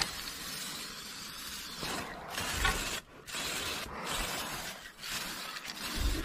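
Aerosol spray-paint can spraying in a few long hissing bursts with short breaks between.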